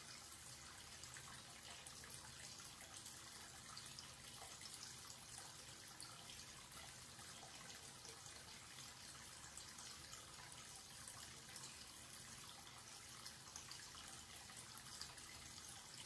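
Tap running a steady stream of water into a wash basin: faint, even splashing and trickling.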